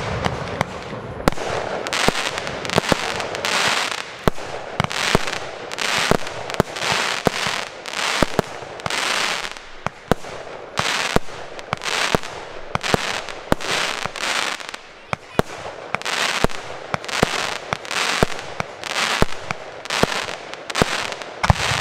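Aerial fireworks going off in a rapid, even sequence: sharp bangs about one and a half a second, each followed by a brief hissing, crackling rush.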